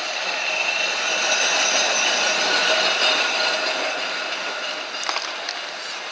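Centenary-class tram 648 passing close by on its rails: wheel and running noise with a steady high whine, swelling to its loudest about two to three seconds in and fading as it moves away, with a few sharp clicks about five seconds in.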